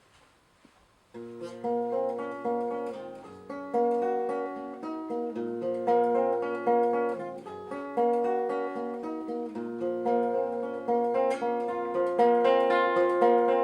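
Acoustic guitar playing the instrumental introduction to a song, starting about a second in after a brief hush: a run of picked notes and chords over a held low bass note.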